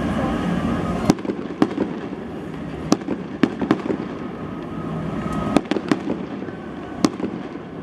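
Fireworks display bursting: a series of sharp cracks and bangs at irregular intervals, after a dense low rumble that drops away about a second in.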